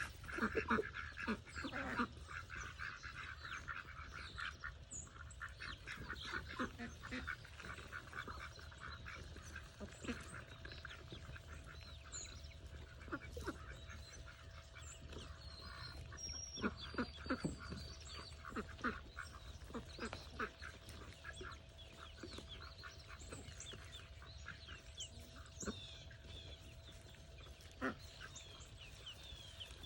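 Animals feeding, with birdlike calls and many short clicks scattered throughout; the calls are loudest in the first couple of seconds. A faint steady hum runs under most of it.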